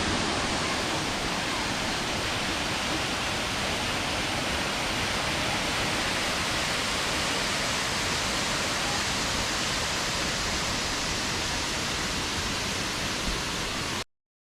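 Waterfall: water pouring down in a steady, even rush, which cuts off abruptly near the end.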